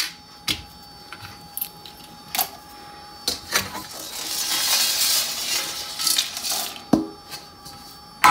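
Whole spices handled on a steel tray with a few light clicks, then, about four seconds in, tipped from the tray into a frying pan in a rattling, hissing pour of about two and a half seconds, followed by a single knock.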